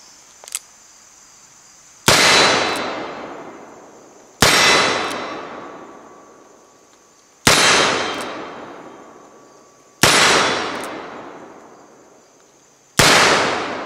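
Colt Single Action Army revolver fired five times, slow single shots two to three seconds apart, each shot echoing and dying away over about two seconds. A faint click comes about half a second in, before the first shot.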